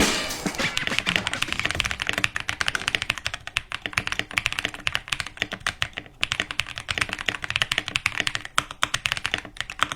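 Fast, continuous typing on an Attack Shark X85PRO gasket-mount mechanical keyboard: a dense run of quick keystroke clacks, with a brief pause about six seconds in.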